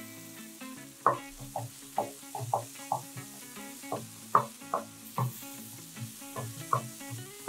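A wooden spatula stirring and scraping a thick masala paste frying in a nonstick kadai. Short, sharp scrapes come irregularly about one or two a second over a steady sizzle.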